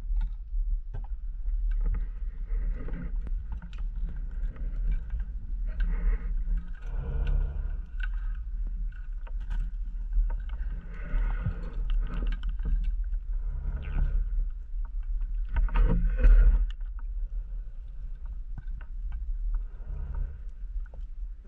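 Underwater sound of a scuba diver breathing: surges of bubbling exhaust from the regulator every three to four seconds, the strongest about sixteen seconds in, over a steady low rumble of water on the camera housing.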